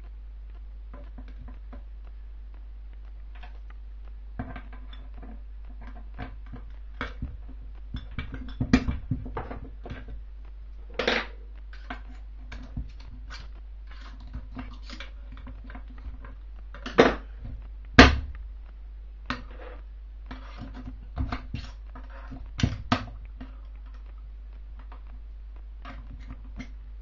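Small steel parts of an NSU Max 250 gear shift mechanism clicking and clinking against each other and the aluminium gearbox casing as they are fitted by hand, with irregular light knocks and a few sharper ones in the middle, over a low steady hum.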